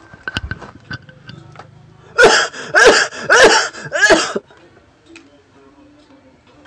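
A person's voice: four loud, harsh, short outbursts in quick succession, each with a wavering pitch, after a few light clicks and knocks.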